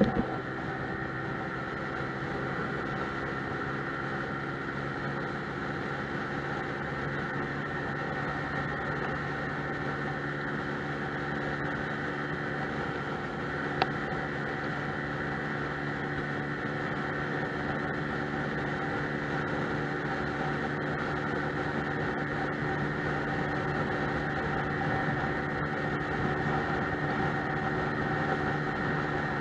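Lexmoto Milano scooter engine running steadily under way, with wind and road noise over the handlebar-mounted camera. A single sharp click comes about halfway through, and the sound grows slightly louder near the end.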